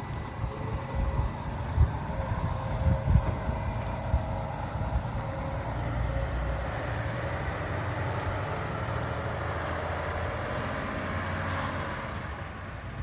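Heavy diesel machinery running steadily, with a faint steady whine over the engine and a few knocks in the first few seconds, as a semi is loaded with dry corn from the grain bin.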